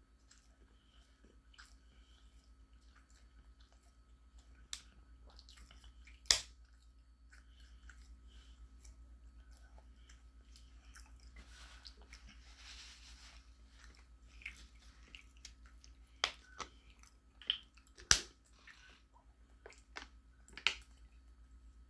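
Quiet chewing of a soft turkey and cheese sandwich, broken by a few sharp mouth clicks and smacks. Near the end comes a drink from a plastic water bottle.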